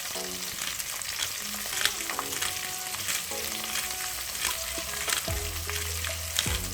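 Chopped onions sizzling in hot olive oil in a wok: a steady hiss with frequent small pops and crackles.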